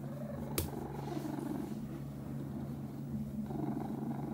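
Domestic cat purring loudly right against the microphone, the purr swelling and easing with its breathing. A single sharp knock about half a second in.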